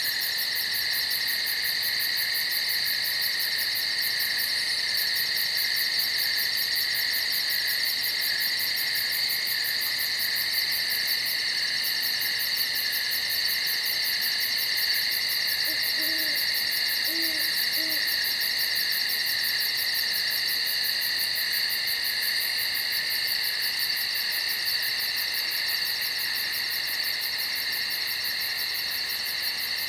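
Night woodland ambience: a steady, shrill chorus of insects, with a few faint low owl hoots a little past the middle.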